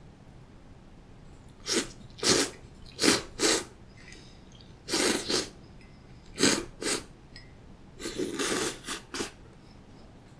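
A person slurping cold soba noodles: a run of short, loud sucking slurps, some single and some in quick pairs, starting about two seconds in.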